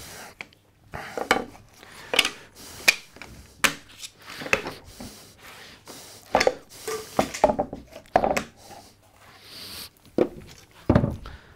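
Small pieces of wood being handled, knocked together and set down on a wooden workbench: a scatter of irregular light clacks and knocks.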